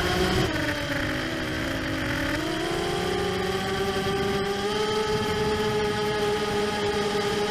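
Racing quadcopter's four brushless motors and propellers whining, heard from the camera on board. Their pitch drops over the first couple of seconds as the throttle eases, rises again around the third second, and then holds fairly steady.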